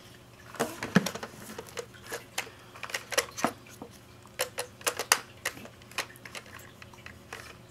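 Irregular plastic clicks and knocks from a camcorder being handled and slid into a Sony SPK-CXA hard-plastic underwater housing.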